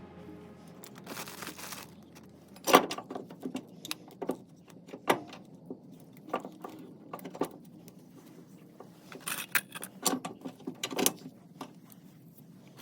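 Steel bolts and hardware from a radius arm bracket kit clinking and knocking as they are handled: irregular sharp clicks, the loudest nearly three seconds in.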